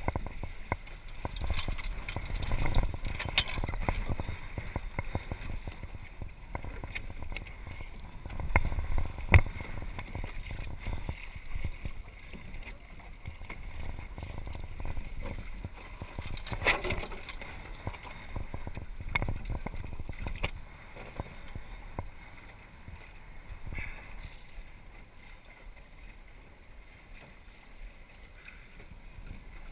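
Water splashing and lapping against the hull of a small sailing dinghy under way, with wind buffeting the microphone as a low rumble and a few sharp knocks from the boat.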